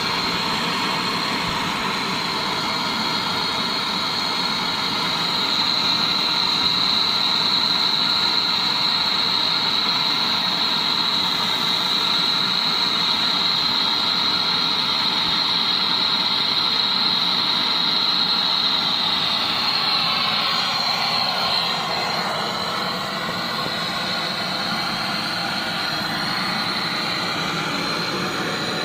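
Brazing torch flame running with a steady hiss while heating an air conditioner's refrigerant pipe to seal a leak. The hiss changes slightly about twenty seconds in.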